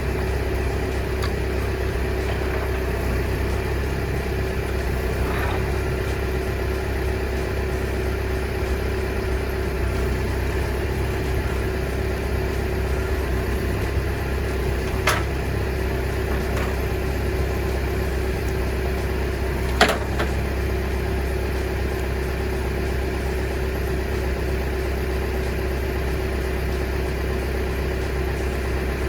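A truck engine running steadily with a constant low rumble and hum. Two brief sharp clicks come through, one about halfway and another a few seconds later.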